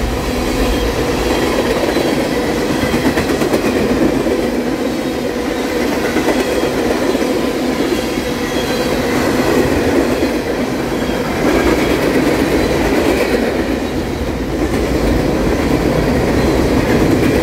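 Freight train cars rolling past close by: the steady rumble and clatter of steel wheels on the rails, swelling and easing slightly as the cars go by.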